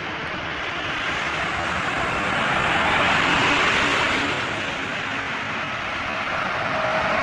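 Highway traffic passing at speed: tyre and engine noise swells as a truck goes by about three seconds in. Near the end a Volvo B11R coach approaches and a steady whine comes in.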